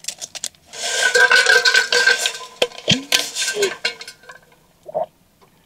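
Drinking water from a water bottle close to the microphone: water gurgling and sloshing in the bottle for a couple of seconds, then softer clicks and a few swallows.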